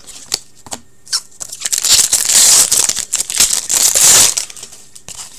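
A 15-16 Upper Deck Series 2 hockey card pack's wrapper being torn open and crinkled. A few light clicks come first, then about two and a half seconds of loud tearing and crinkling.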